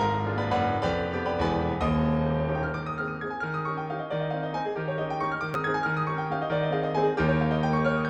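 Background music: a piano plays a chord progression over sustained low bass notes.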